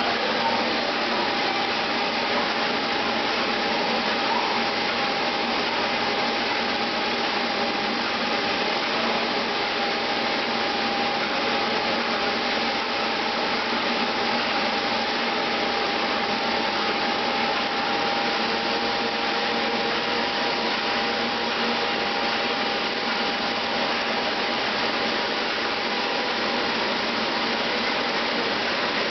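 Steady whir of an electric motor with a thin constant whine, unchanging throughout.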